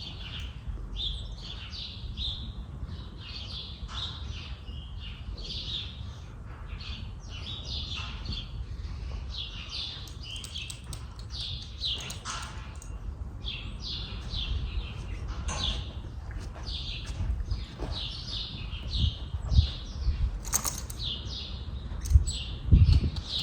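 A flock of small birds chirping busily in quick, repeated calls, over the low rumble of wind on the microphone. A few louder low bumps come near the end.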